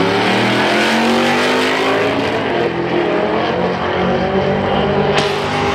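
Two drag-racing cars accelerating hard off the line, engines at full throttle, their note climbing steadily as they pull away down the strip.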